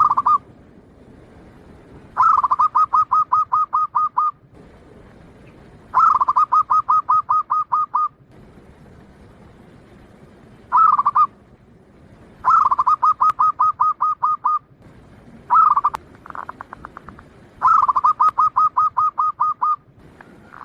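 Bangkok-type zebra dove (perkutut) cooing in repeated phrases. Each phrase is an opening note followed by a fast rolling run of coos lasting about two seconds, with a few shorter bursts in between.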